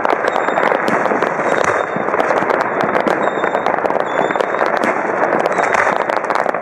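Many fireworks and firecrackers going off at once: a dense, unbroken crackle of bangs and pops with no pause.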